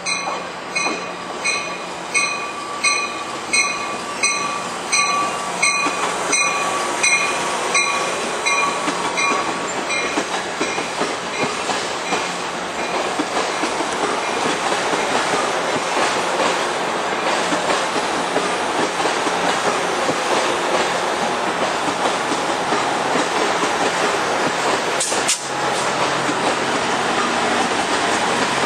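Amtrak Pacific Surfliner train rolling into the station. A bell rings about twice a second for the first ten seconds and fades out, leaving the steady rumble and clatter of the bilevel cars and the F59PHI diesel locomotive passing. There is a single sharp clank about 25 seconds in.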